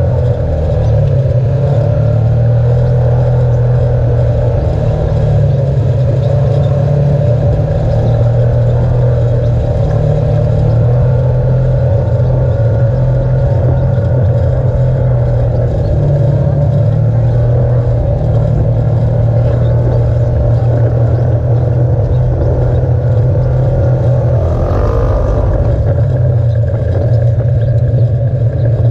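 Engine of an off-road vehicle running steadily as it drives, a loud continuous low drone heard from a camera mounted on the vehicle. A brief higher-pitched sound rises over it near the end.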